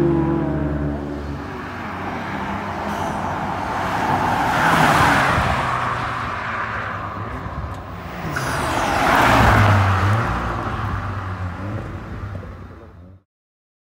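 Tuned cars driving hard down the road: an engine drone fades as a car pulls away at the start, then two louder passes swell and fade, about five and nine and a half seconds in. The sound cuts off abruptly near the end.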